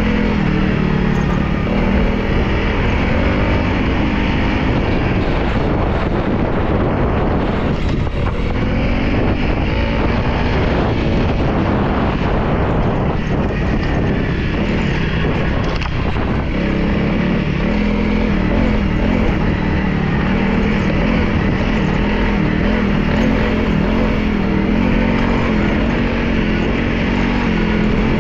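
Motorcycle engine running steadily under way, its pitch rising and falling a little, with brief dips about a third and halfway through.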